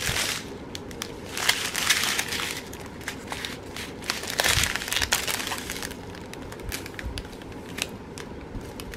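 Small clear plastic bags of diamond-painting drills crinkling and rustling as they are handled, in irregular bursts.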